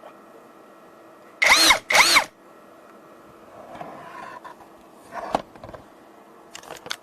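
Brushless motor of a VOERJIA 21V cordless drill run in two short trigger pulls about a second and a half in, each a whine rising in pitch and falling away again, followed by quieter knocks and clicks.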